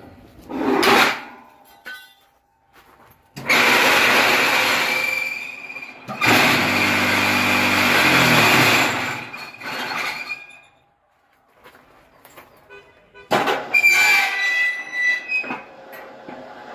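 Homemade cinder-block machine running, its electric vibrator motors giving a harsh rattle with a steady high whine over it. It runs in two stretches that start and stop abruptly: a long one from about three seconds in, and a shorter one near the end.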